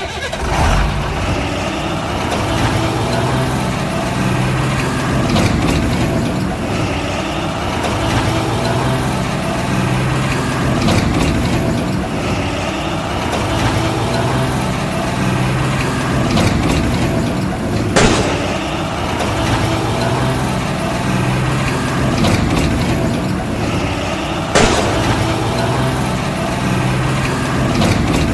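Heavy diesel truck engine running, its low note swelling and easing every couple of seconds as if pulling under load. Two sharp clicks stand out, one about two-thirds of the way through and one near the end.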